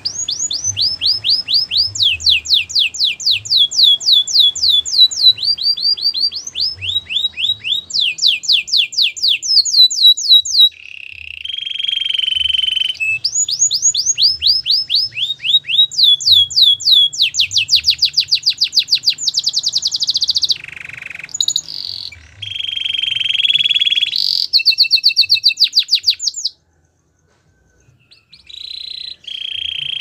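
Canary singing a long, loud song: runs of rapid downward-sweeping notes, each run at its own speed and pitch, broken by steadier buzzy rolls. The song stops briefly near the end, then starts again.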